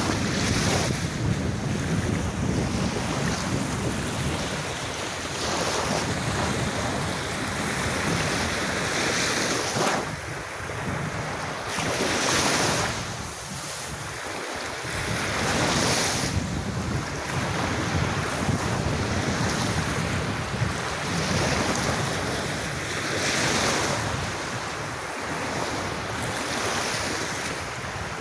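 Sea waves washing onto a beach, a swell of hiss every three to four seconds, over a low rumble of wind on the microphone.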